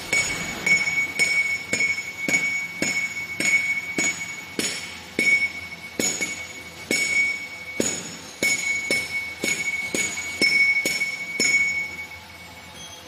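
Repeated sharp metal-on-metal strikes, a little under two a second and slightly uneven, each leaving a high bell-like ring from the struck steel. They stop about twelve seconds in.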